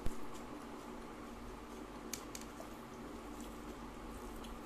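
Fingers mixing rice with mutton curry on a plate by hand, giving soft wet squishing, with a soft knock at the very start and a couple of light clicks about two seconds in.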